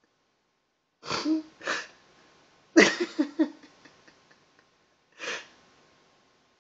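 Breathy bursts of a person's voice close up: two short puffs about a second in, a louder burst about three seconds in that breaks into a quick run of shorter puffs, and one more puff near the end.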